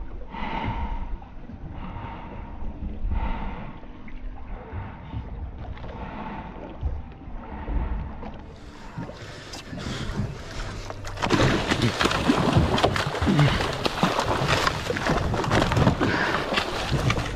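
Low wind and water noise around the boat. About eleven seconds in, it gives way to loud, continuous splashing as a hooked cobia thrashes at the surface against the hull.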